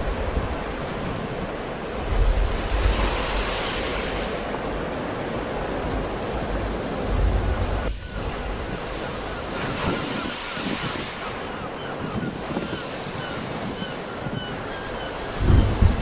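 Sea waves breaking and washing in, swelling twice into a louder rush, with wind buffeting the microphone in low gusts.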